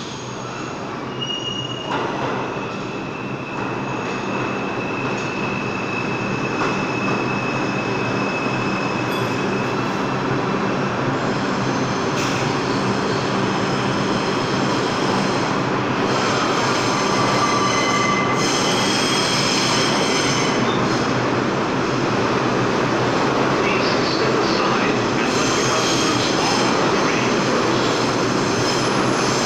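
Stainless-steel subway trains running through an underground station, with a steady rail rumble and thin high-pitched wheel squeals on the rails. The noise grows louder as a train pulls in right alongside the platform near the end.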